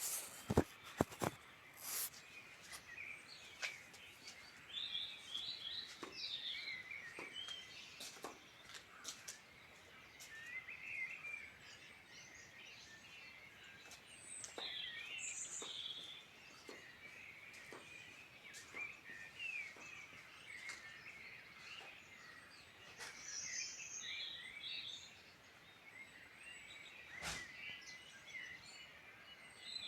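Several wild birds singing and calling, short chirps and warbling phrases overlapping. A few sharp clicks come in the first two seconds, and one more near the end.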